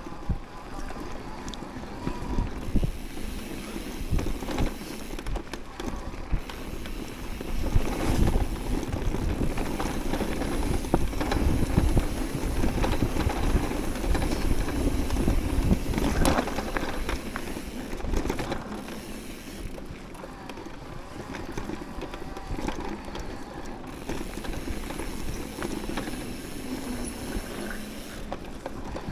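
Electric mountain bike ridden along a dirt trail: tyres rolling over the ground, with frequent knocks and rattles from the bike. The noise is loudest through the middle stretch and eases toward the end.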